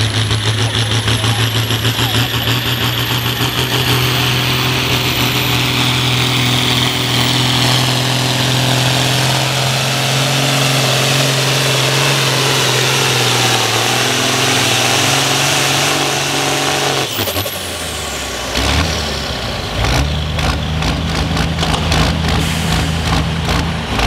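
Ford TW-20 pulling tractor's turbocharged diesel engine running hard under full load as it drags the weight sled, with a turbo whistle climbing in pitch over the first several seconds. About 17 seconds in, the engine drops off abruptly and the turbo whine falls away as the pull ends. Then the engine settles to a lower, steady run with some sharp clicks.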